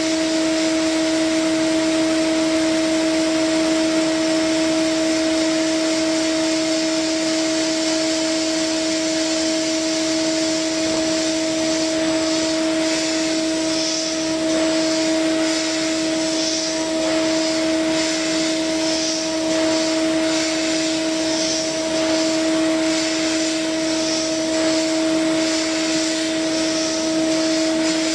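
CNC milling machine spindle cutting a metal part with a gold-coated end mill: a steady whine with a second tone an octave above it, under a hiss of cutting noise. In the second half the hiss swells and fades about once a second.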